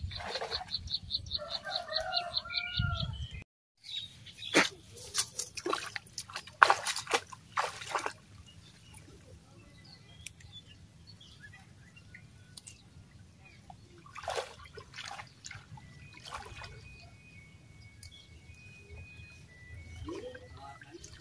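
Splashing and rustling as someone wades through shallow water among grass and water plants, picking by hand, with several sharp swishes and splashes in clusters. A rapid high chirping trill plays at the start, with faint bird calls later.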